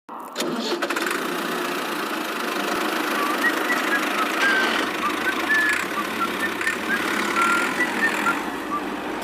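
A steady mechanical running noise, like a small motor, starts abruptly and runs on. Short high chirps are scattered over it from about three seconds in.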